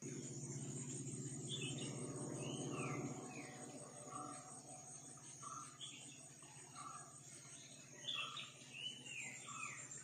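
Insects trilling steadily and high-pitched, with birds calling over it: clusters of arched, falling whistled notes twice, and a short lower note repeated about once a second. A low drone is loudest in the first three seconds, then fades.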